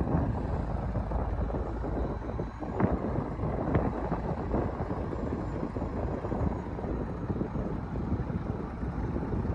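Heavy diesel earthmoving machinery running steadily, a bulldozer and dump trucks working dirt, with two sharp knocks about three and four seconds in.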